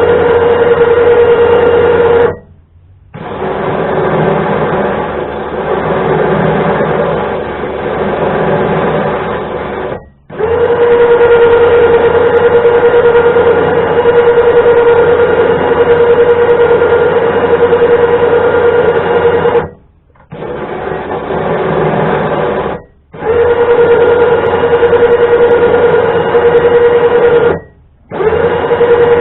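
Electric winch motor running in bursts as it winds the cable, starting and stopping several times. The louder runs carry a steady whine, and in between are quieter runs without the whine.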